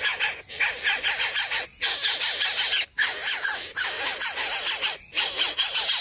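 Greater coucal nestlings begging: harsh, raspy calls in rapid runs, broken by several brief pauses.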